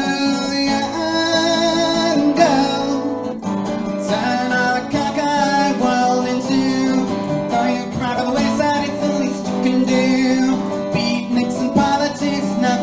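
Acoustic guitar strummed through an instrumental passage of a 1960s psychedelic pop song, with some singing over it.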